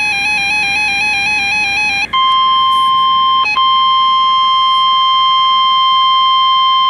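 NOAA Weather Radio emergency alert. For about two seconds there is a buzzy electronic tone rapidly stepping between pitches, the tail of the SAME data header. Then the steady 1050 Hz weather-radio warning alarm tone comes in, loud and unbroken apart from a brief dropout about three and a half seconds in.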